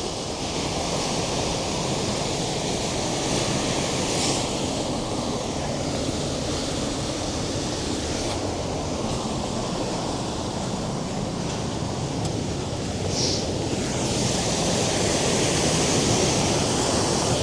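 A large waterfall rushing steadily, with wind buffeting the microphone.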